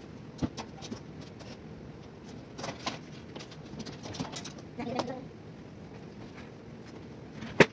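Scattered knocks, clicks and clunks of a metal-framed glass-top desk and computer being handled and set in place, ending in a loud sharp knock near the end.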